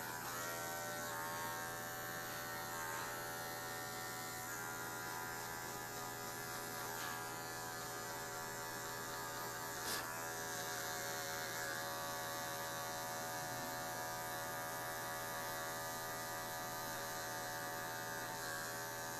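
Cordless hair clipper running steadily with an even electric hum as it trims a fade, with one faint click about halfway through.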